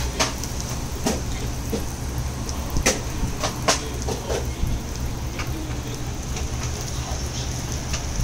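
Eggs, a meat patty and ham slices sizzling on a flat-top griddle: a steady hiss over a low, steady rumble, with a few sharp clicks around three to four seconds in.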